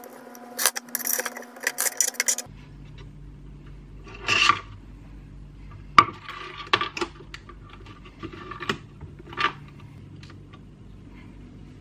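Small metal parts (a bolt and a wire hook) being handled on a wooden board: scattered clicks, taps and short clinking rattles. The first couple of seconds carry a dense run of clicks over a faint steady hum.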